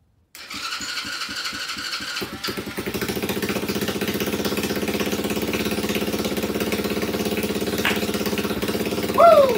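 A Chinese 110cc ATV's single-cylinder four-stroke engine being cranked by its new electric starter with the choke on: a whining starter and even cranking pulses for about two seconds, then the engine catches and settles into a steady idle, its first run on fresh fuel after the rebuild. A short shout of "Woo!" comes near the end.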